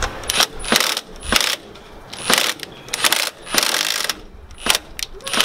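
Cordless power tool spinning a socket on a car's positive battery-terminal bolt in about eight short bursts, backing the bolt out.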